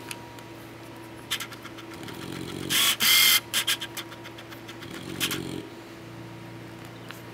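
Sleeping English bulldog snoring in slow, low, buzzy breaths about every three seconds. About three seconds in comes a brief, loud, high hiss with a squeak in it, and a few soft clicks fall around it.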